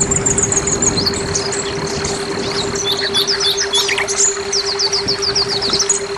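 Orange-headed thrush singing in quick runs of short, high, falling notes. A steady high tone and a steady low hum run beneath the song.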